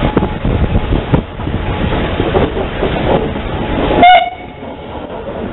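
Cab noise of an 0-8-0 steam tank locomotive rolling slowly over the track: steady rumble with irregular knocks and clatter. About four seconds in comes a short, loud whistle toot, and the rumble drops away after it.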